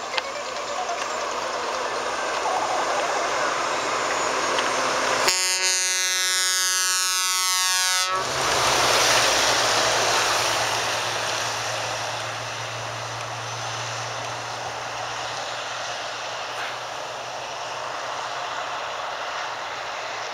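A Scania R480 truck passes close by and sounds its air horn in one multi-tone blast of about three seconds, the upper tones dropping in pitch near the end. Its engine and tyres then go by and fade as it drives away.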